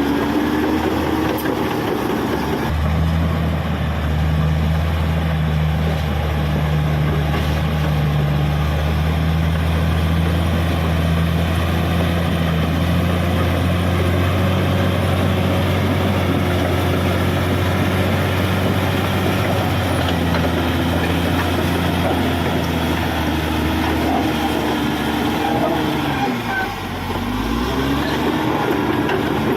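Cat D6R XL bulldozer's diesel engine running steadily under work, its deep note strengthening a few seconds in. Near the end the revs sag briefly and then climb back.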